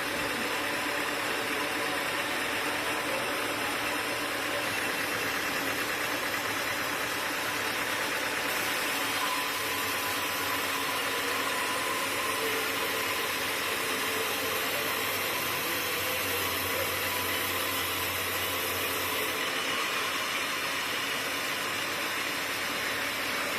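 Sawmill machinery running steadily, with a low hum and a high hiss joining in from about nine seconds and dropping away again near twenty seconds.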